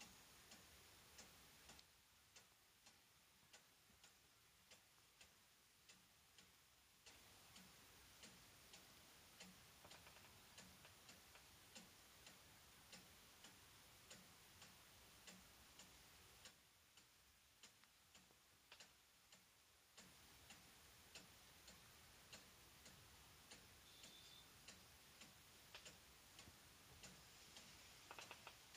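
Faint, steady ticking, about two ticks a second, in an otherwise near-silent room.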